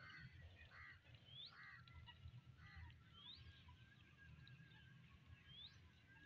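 Faint quacking of domestic ducks, four short calls in the first three seconds. A small bird's rising whistle repeats three times, about two seconds apart, over a low rumble.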